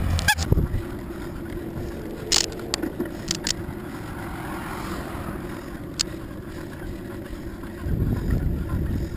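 Wind buffeting the microphone and tyre noise on asphalt as a bicycle rolls along, with a few short sharp clicks and rattles. The wind buffeting is heavier at the start and again from about eight seconds in.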